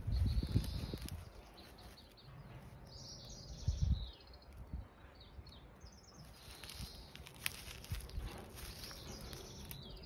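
Small birds chirping and trilling in the background, with low rumbling thumps in the first second and again about four seconds in.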